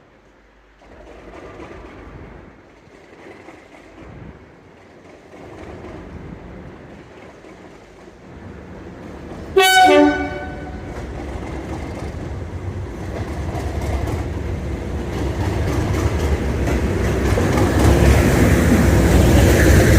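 Class 37 diesel locomotive running light engine, giving one short, loud horn blast just before halfway through, then its English Electric V12 diesel engine growing steadily louder as it approaches.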